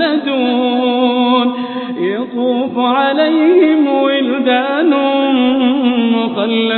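A solo male voice chanting Quran recitation with tajwid, holding long drawn-out melodic notes with ornamented wavering. There is a short break about two seconds in.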